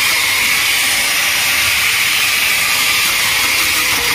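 Handheld rotary tyre buffer running steadily against the inner liner of a tubeless tyre, a continuous hissing grind as the area around the puncture is roughened for a mushroom plug repair.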